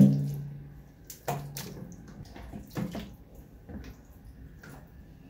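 Raw chicken pieces being rinsed in water at a kitchen sink and dropped into a pot. There is a dull thump with a short low ring at the start, then a few short wet splashes.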